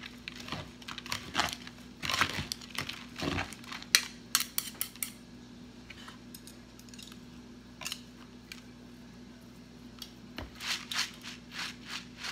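Metal spoon stirring wet, soaked glutinous rice and peanuts in a plastic colander, scraping and clicking against its sides in quick strokes. The stirring pauses for a few seconds in the middle, then starts again near the end.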